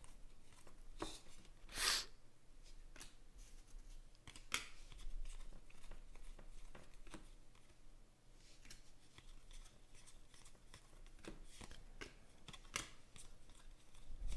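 Stiff cardstock football trading cards thumbed through by hand: faint, irregular flicks and slides as cards are pushed off the stack one after another, with a sharper snap about two seconds in.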